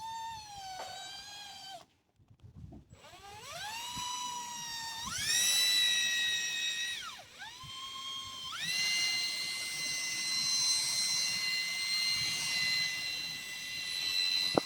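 Electric drill motor whining at varying trigger speed. It stops about two seconds in, spins up again and runs at a lower pitch, then jumps to a higher speed. After a brief dip it holds the high pitch steadily to the end.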